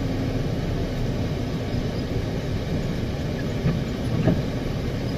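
Steady low rumble of a semi-truck's engine and tyres, heard inside the cab while driving on a wet highway. Two faint knocks come a little over half a second apart near the end.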